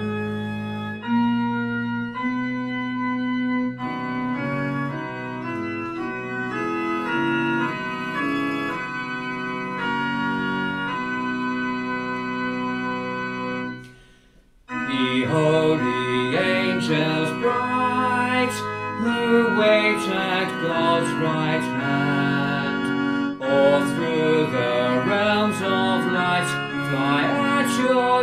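Organ playing a hymn in full held chords. It stops briefly about halfway through, then starts again more fully, with voices that seem to be singing along.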